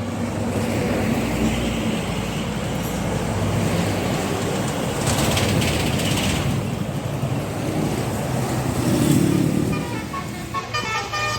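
Roadside traffic: heavy vehicles passing close by with engine and tyre noise, the loudest about nine seconds in, and a brief hiss around the middle. Near the end a multi-tone telolet musical bus horn starts to play.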